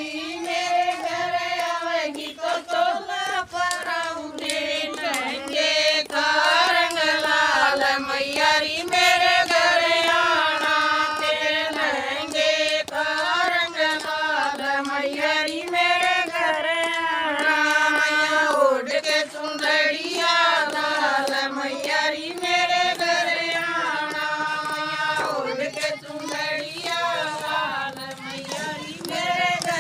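A group of women singing a Hindu devotional bhajan together, a continuous, gliding melody without a break.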